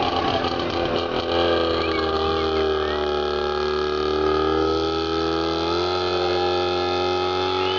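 Small tractor engine running hard, its pitch sagging over a few seconds as it labours and then rising again about six seconds in.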